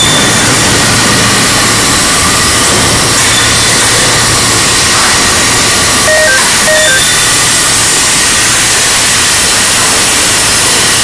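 Steady, loud mechanical rumble and hiss of an overhead crane travelling with a suspended steel plate. Two short beeps sound about six and seven seconds in.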